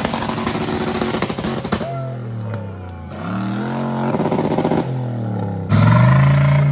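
Off-road 4x4 engine revving up and down, its pitch falling and rising several times, with clattering noise over the first couple of seconds and a sudden louder burst of throttle near the end.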